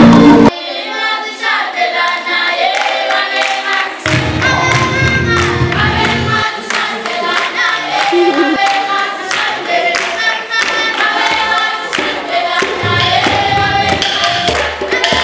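Marimbas playing, cut off abruptly about half a second in, followed by a choir singing a melody. A deep low part sounds under the voices from about four to six and a half seconds in.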